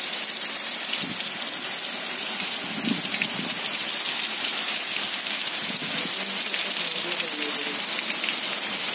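Heavy monsoon rain pouring down steadily, an even, dense hiss of drops falling on trees and wet stone.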